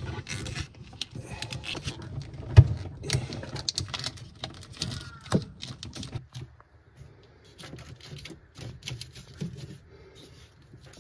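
Quick clicks and rattles of wiring in corrugated plastic conduit being handled and pushed into place against the car body, with one sharp knock about two and a half seconds in. The clicking thins out and grows quieter after about six seconds.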